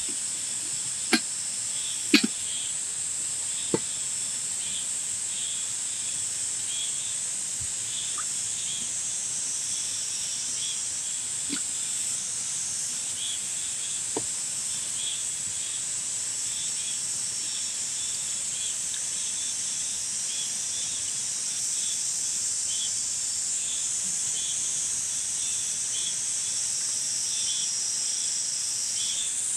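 Steady high-pitched insect chorus with a faint, evenly pulsing chirp underneath. A few sharp clicks and knocks of kitchenware in the first four seconds, the loudest about two seconds in.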